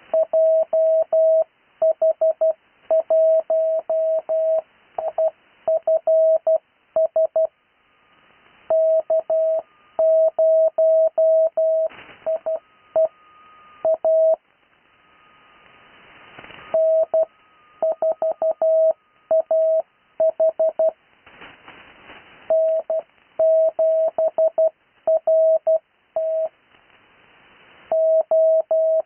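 Morse code (CW): amateur radio call signs sent as a single keyed tone of about 650 Hz, in character groups separated by pauses. Hiss fills the gaps, with a few brief bursts of static.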